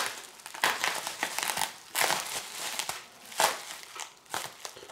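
Plastic bubble wrap crinkling in uneven bursts as it is handled and slit open with a small knife.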